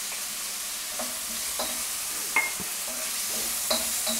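Pork belly, garlic and leek sizzling in hot oil in a wok, with a steady frying hiss. A wooden spoon stirs them, knocking and scraping against the wok a handful of times, and one knock rings briefly.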